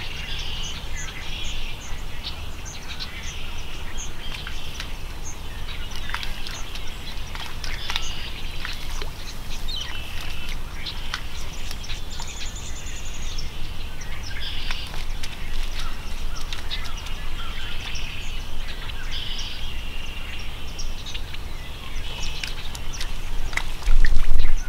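Birds calling in a marsh, short chirps repeated every second or two, with scattered light ticks over a low steady rumble. Near the end, a loud low bump as gear is handled close to the microphone.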